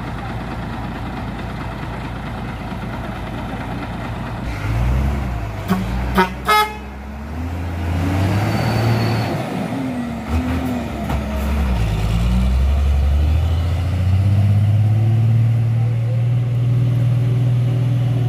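Loaded sugarcane truck's diesel engine pulling away: a steady low drone, then the engine revs rise and fall through gear changes and it settles into a louder steady drone. Two or three short horn toots sound about six seconds in.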